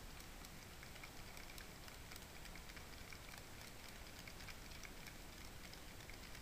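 N gauge Blue Pullman model train running past on the track: a faint, fast, irregular ticking and pattering from its wheels on the rails.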